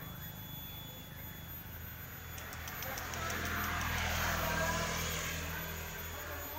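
An engine passing by: a steady low drone with a rushing noise over it, growing to its loudest about four to five seconds in and then fading.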